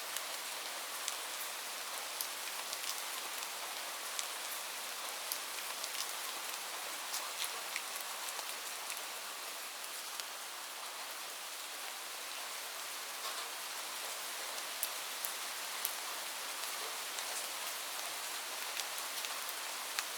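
Steady light rain falling, an even hiss with many separate drops ticking on a surface throughout.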